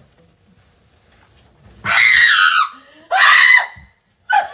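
A woman screams twice in fright, two loud, high shrieks under a second each starting about two seconds in, the first sliding down in pitch.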